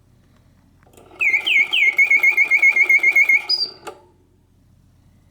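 1950s Karl Griesbaum singing bird cage, a mechanical whistle automaton, set to pause mode. About a second in it sings one phrase: a few downward-swooping whistles, then a rapid even trill of about seven notes a second, ending on a higher note. The phrase stops with a click, and the bird falls silent in its pause.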